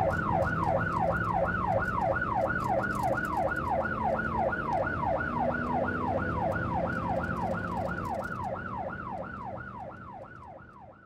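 Police siren in fast yelp mode, rising and falling about three and a half times a second over a low steady hum. It fades out over the last few seconds.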